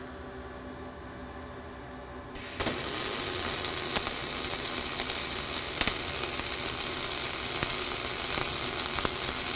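Flux-core arc welding: after a low machine hum, the arc strikes about two and a half seconds in and runs on as a steady crackling sizzle with sharp pops as the vertical cap pass is laid.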